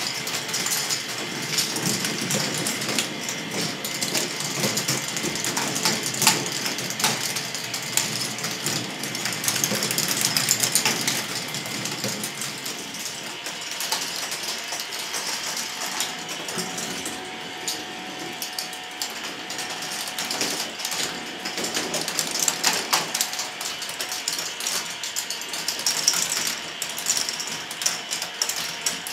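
K'nex ball machine running: plastic balls clicking and clattering along plastic tracks and through elements, with the continuous rattle of motor-driven lifts and gears.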